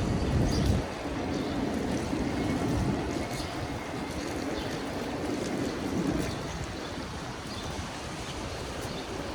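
Steady hiss of wet city traffic and tyres on rain-soaked pavement, with wind on the microphone. A heavier low rumble drops away about a second in.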